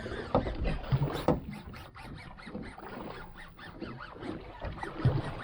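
Fishing reel cranked hard against a heavy pull: a quick, even run of clicks, several a second, from a shark-taken fish on the line. A few dull knocks come near the start and again near the end.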